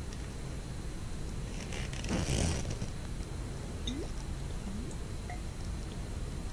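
Quiet handling noise from working on a glitter-coated glass bottle: a short rustling shake about two seconds in, then a couple of faint squeaks.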